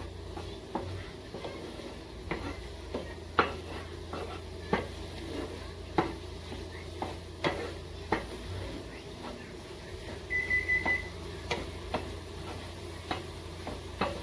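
Wooden spatula scraping and knocking against a nonstick frying pan while scrambling eggs, in irregular taps roughly once a second. A brief high electronic beeping, a few quick pulses, sounds about ten seconds in.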